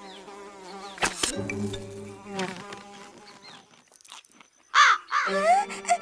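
Cartoon sound effect of a fly buzzing, its whine wavering up and down in pitch, over background music. There is a sharp click about a second in, and the buzz is loudest near the end.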